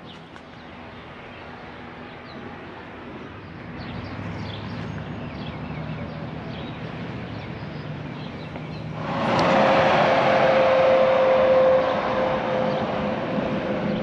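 A motor vehicle going by loudly from about nine seconds in, a steady noise with one held tone, after faint bird chirps over a quiet outdoor background.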